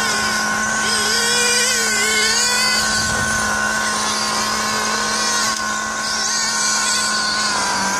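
1/8-scale RC race cars running laps, their motors whining and rising and falling in pitch, over a steady droning tone.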